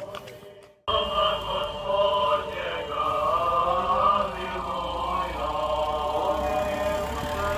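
Group of voices chanting a hymn together, starting abruptly about a second in.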